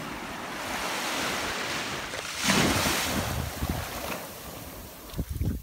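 Small waves washing up onto a sand beach: a foamy hiss that swells to its loudest about two and a half seconds in, then ebbs. Wind buffets the microphone with low rumbles.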